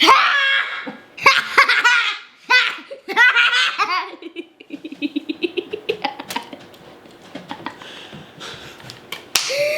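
Hearty laughter in loud high-pitched bursts for about four seconds, trailing into a quieter run of quick, even ha-ha pulses that fade out, with a few faint clicks after.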